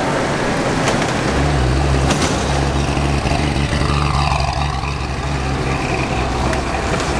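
Road traffic: a heavy vehicle's engine running with a low, steady rumble as it passes close.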